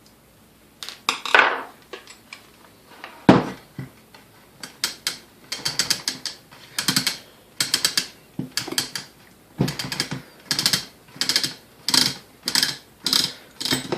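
Grind-adjustment ring on a KitchenAid A9 coffee mill being worked loose and unscrewed by hand, metal on metal. A few knocks, a sharp one about three seconds in, then short rasping turns about one and a half a second.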